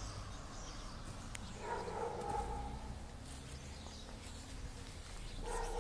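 An animal calling twice, once about two seconds in and again near the end, with a low hum underneath.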